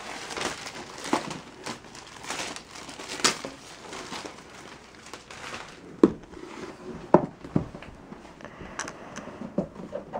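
Thin plastic shrink-wrap crinkling and tearing as it is peeled off a laptop's cardboard box, then a few sharp knocks about six and seven seconds in as the box is handled.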